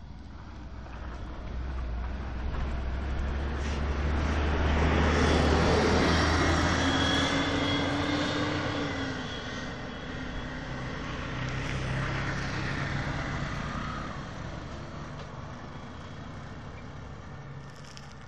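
A motor vehicle driving past close by, its engine rumble building to its loudest about six seconds in and then fading, with a second, smaller swell around twelve seconds in.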